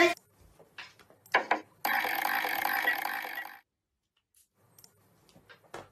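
Homemade cardboard slot machine being played: a few light clicks, then its paper-roll reels spin with a steady rough buzz for about two seconds that cuts off, followed by more scattered clicks near the end.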